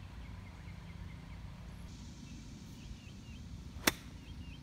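A golf club strikes a ball once with a sharp crack about four seconds in, over a low steady rumble.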